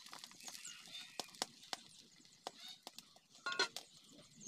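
Egg omelette sizzling faintly on a hot stone griddle, with irregular sharp pops and crackles. Small birds chirp in the background, and a short animal call comes about three and a half seconds in.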